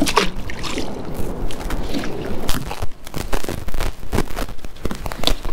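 Water splashing against the side of a kayak, followed by a run of scattered clicks and knocks of fishing gear being handled on the hull.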